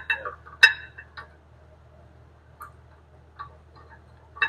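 Brake pads and their clips clinking against a steel caliper bracket as they are set in place: a few sharp, ringing metal clinks, the loudest just under a second in, then scattered fainter ticks.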